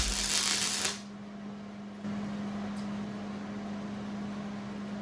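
A loud crackling hiss cuts off about a second in. About two seconds in, a steady electrical hum at one low pitch comes up and holds.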